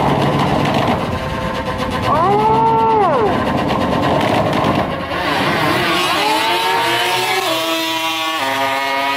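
Drag motorcycle doing a burnout, its engine blipped up and back down over the spinning rear tyre, then launching and accelerating hard with two quick upshifts near the end.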